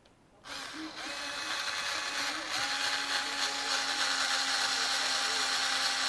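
Cordless drill driving a small M3 bolt into an RC car's plastic chassis: the motor whine starts about half a second in and settles to a steady pitch about two seconds later.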